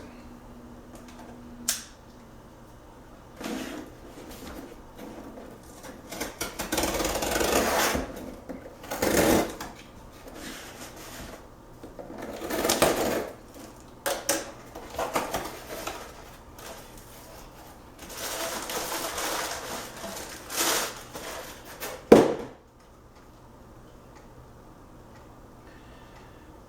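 Cardboard shipping box being opened and unpacked by hand: irregular bursts of scraping, tearing and rustling, with a single sharp knock about 22 seconds in, then only a faint low hum.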